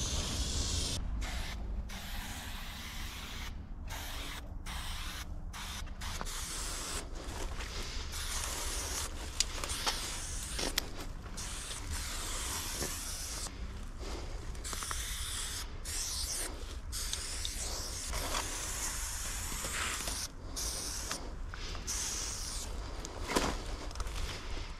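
Aerosol spray paint cans hissing against a wall in a run of short and longer sprays, each cut off by a brief pause, over a steady low rumble.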